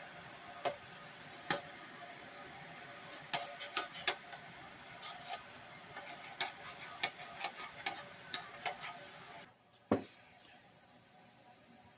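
Irregular light clicks and taps over a steady background hum. The hum cuts off near the end, and then one louder click follows.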